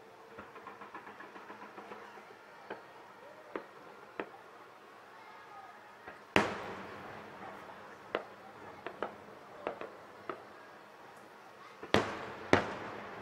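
Aerial firework shells bursting at a distance, each bang echoing briefly: a quick run of small crackling pops at the start, scattered lighter bangs, one big boom about six seconds in and two more close together near the end.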